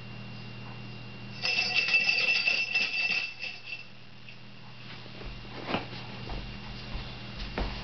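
A bell rings rapidly for about two seconds, starting a second and a half in: the pretend fire alarm that wakes the sleeping 'firefighter'. A few separate thumps follow later.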